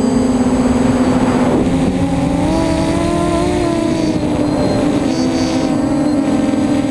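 Brushless motors and propellers of a scratch-built F330 quadcopter whining, heard through the onboard camera, with wind rushing over the microphone. The pitch dips about a second and a half in, then climbs and levels off as the throttle changes.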